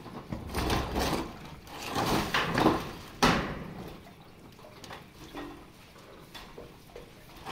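Corrugated metal roofing sheet being slid across and laid down on a metal roof: scraping and rattling, ending in a sharp clatter about three seconds in, then quieter.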